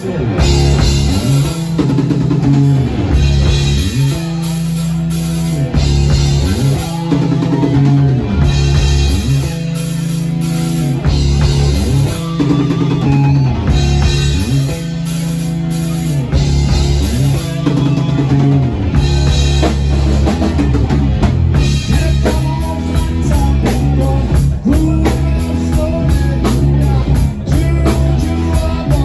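A live rock band playing loudly: electric guitar and drum kit over a heavy, deep bass line, with a steady beat.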